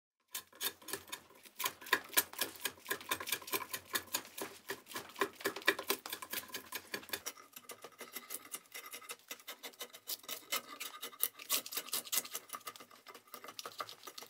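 A freshly sharpened, restored antique draw knife shaving hair off a forearm with a dense fine crackle, the sign of a keen edge. About seven seconds in it changes to the blade scraping and peeling dry bark from a log, with rapid crackling and rasping.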